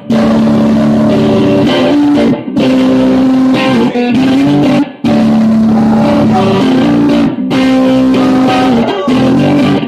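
Live solo performance: electric guitar chords with a man singing long held notes over them. It comes in phrases of about two and a half seconds, each ending in a short break.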